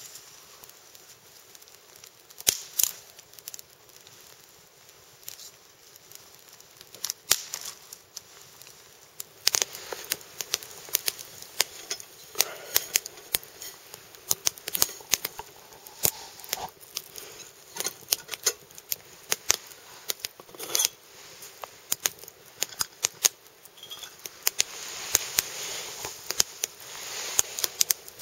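Wood campfire crackling, with sharp irregular snaps and pops that come thicker from about ten seconds in.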